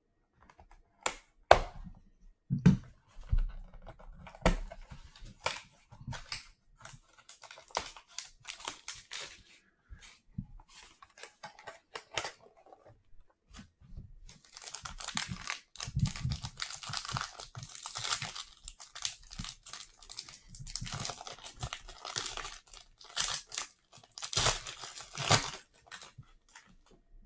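A trading card box and its packs being opened by hand: sharp clicks and knocks of cardboard handling in the first few seconds, then a long stretch of plastic wrapper tearing and crinkling from about halfway through to near the end.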